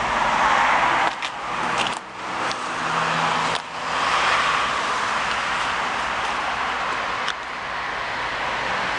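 Steady rush of road traffic, broken by a few clicks and short sudden drops in level in the first four seconds.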